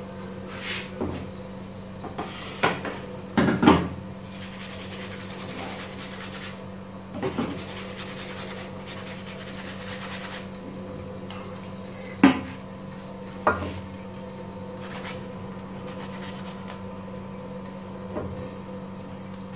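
A frozen tomato being rubbed on a small metal hand grater: a soft rasping scrape with scattered sharp clinks of metal against the bowl, the loudest about three and a half seconds and about twelve seconds in. A steady low hum runs underneath.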